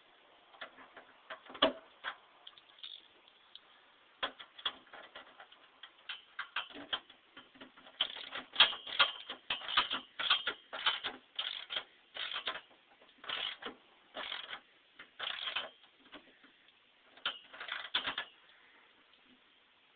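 Two hand socket ratchets clicking in short runs of strokes as the nerf step's middle mounting bolts are tightened. The clicking is sparse at first and busiest in the second half.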